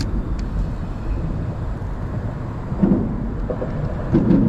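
Wind buffeting the camera's microphone: a steady low rumble with stronger gusts about three seconds in and near the end.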